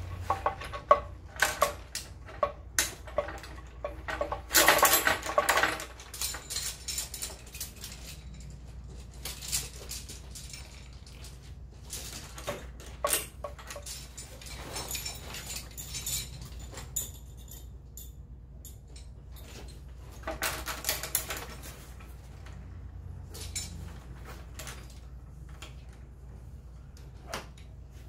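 Carabiners and metal rigging hardware clinking and jangling as climbing rope is handled and pulled through the anchors, in scattered clicks with two denser runs of clinking and rope rustle, about five seconds in and again around twenty seconds in.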